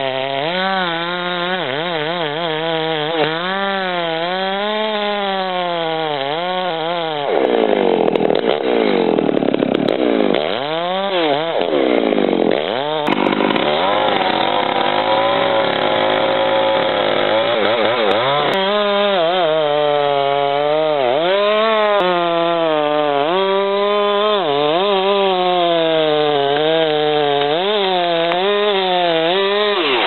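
Gasoline chainsaw cutting into the trunk of a large tree while making the felling undercut. The engine speed rises and falls again and again as the chain works through the wood, with a stretch of steadier high revs partway through.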